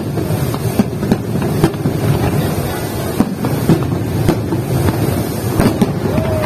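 Fireworks display: a steady low rumble with repeated sharp bangs and cracks going off every second or so.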